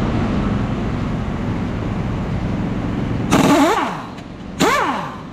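Impact wrench rattling steadily for about three seconds, then two short louder bursts in which the motor spins up and winds back down. It is loosening rusted tensioner bolts on a corn header's row units.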